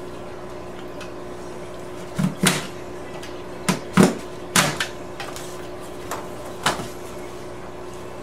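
Utility knife cutting twin-wall polycarbonate sheet along a metal ruler: a string of short, sharp scrapes and clicks, about seven, as the blade works through the sheet and its ribs. A steady low hum runs underneath.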